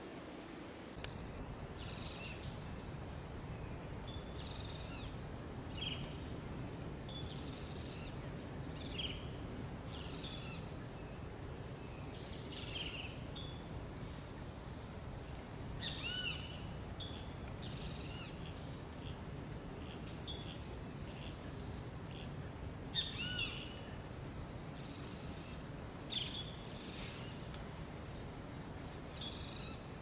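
Tropical forest ambience: continuous high-pitched insect buzzing in two steady tones, with short bird chirps scattered throughout from about a second in. The two loudest calls come about 16 and 23 seconds in.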